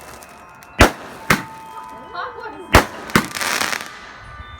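Standard Skyfire aerial display firework cake firing its shots: four sharp bangs in the first three seconds or so, the last two followed by a short burst of crackling.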